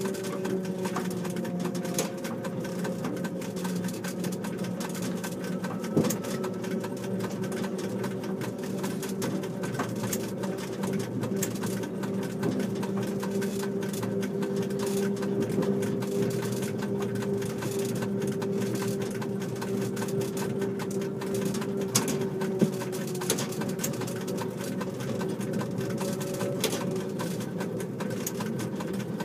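Petit Train Jaune electric train running along the line: a steady hum from the motors that drifts slightly in pitch, with irregular clicks and knocks from the wheels over the track.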